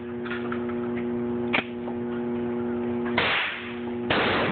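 Two 12-gauge Remington shotgun blasts, about a second apart near the end, each ringing on briefly in the echo of the indoor range.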